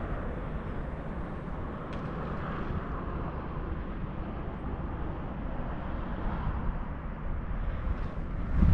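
Steady outdoor background noise: an even rushing hiss over a low rumble, with one faint tick about two seconds in.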